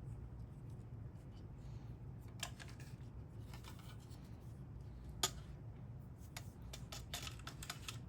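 Small clicks and scrapes of plastic parts being handled and fitted into a Dyson V10's housing, with one sharper click about five seconds in.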